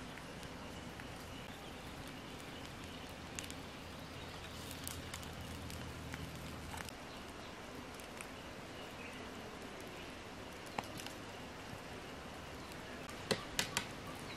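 Quiet outdoor background with a steady faint hiss, scattered small crackles and clicks from a wood fire and from hands handling cassava and meat on a wire grill rack. Three sharper clicks come in quick succession near the end.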